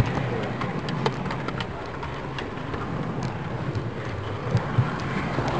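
Model train running on a club layout, with scattered light clicks from the wheels and track over a steady background noise.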